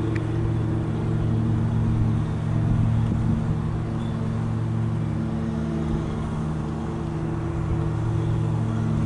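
Steady low engine hum with several held tones, unchanging in pitch and level.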